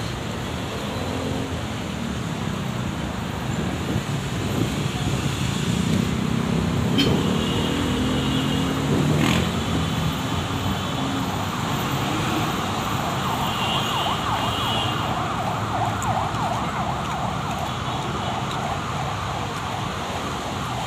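City street traffic: motorcycle-tricycle and vehicle engines running and passing close by, with a deeper engine rumble swelling for a few seconds near the middle.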